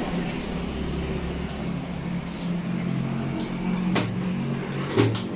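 A steady low mechanical hum, with two sharp clicks about four and five seconds in.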